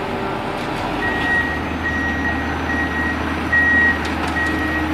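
Heavy vehicle's reversing alarm beeping steadily, about one short high beep every 0.8 seconds from about a second in, over the low steady drone of a heavy engine running.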